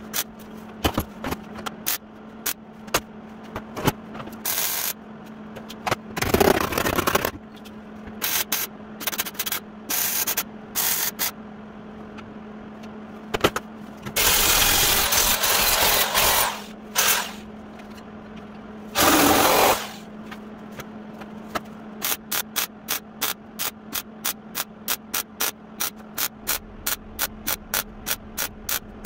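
MIG welder firing in short bursts and two longer runs of a couple of seconds each, welding replacement sheet steel into a rusted truck cab. Near the end the bursts come evenly, about three a second, like stitch welding.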